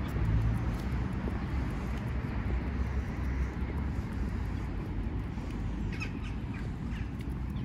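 Outdoor ambience: a steady low rumble, with a few short bird calls about six seconds in.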